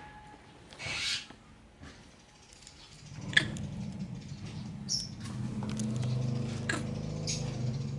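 A few short, high squeaks from a baby macaque, with a sharp knock and rustling against the wire cage. A low steady hum comes in about three seconds in.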